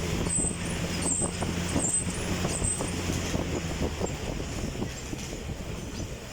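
Stationary exercise bike with a fan, running with a steady whirring noise and a soft pulse about every three-quarters of a second. A low hum underneath fades out about two-thirds of the way through, and the sound eases off toward the end.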